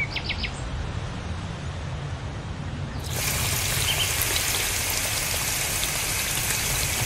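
Water spraying from a garden hose with a thumb pressed over its end: a steady hiss that starts suddenly about three seconds in. Before it there is only a low rumble and a few short chirps.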